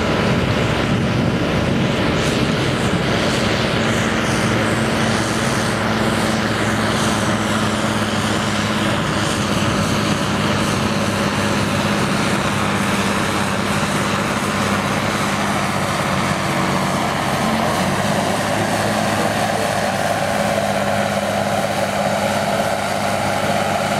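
Valtra T180 tractor's six-cylinder diesel engine held at high, steady revs under heavy load while it drags a tractor-pull sled. It is a loud, continuous engine drone whose note shifts slightly in the last few seconds.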